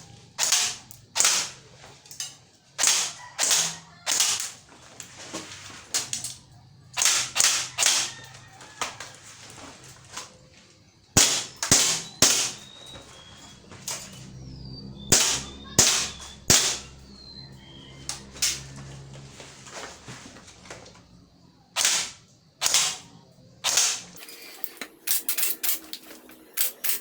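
Airsoft guns firing single shots, often in quick groups of two or three, with short pauses between groups and a faster run of lighter shots near the end.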